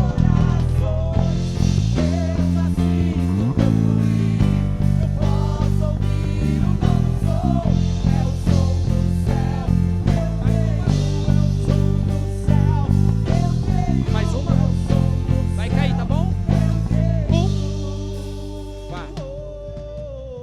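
Worship band playing an instrumental passage, the electric bass prominent with steady repeated notes under an electric guitar melody. Near the end the band holds a chord that fades away.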